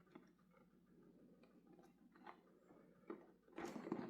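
Near silence broken by a few faint clicks, with a soft rustle starting near the end: cardboard LEGO set boxes being handled and swapped.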